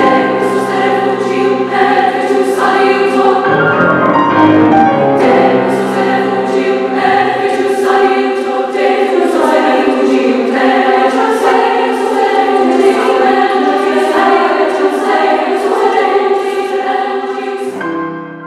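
Women's choir singing in several parts, holding long chords. The singing fades out near the end.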